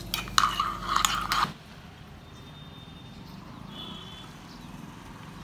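A spoon stirring in a ceramic mug, clinking sharply against the sides for about a second and a half. It cuts off abruptly to faint outdoor background with a few faint high chirps.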